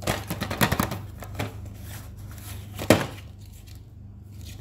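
Cardboard sleeve being slid off a boxed stationery set: quick rustling and scraping of paperboard with a few clicks in the first second and a half, and one sharp louder scrape about three seconds in. A steady low hum runs underneath.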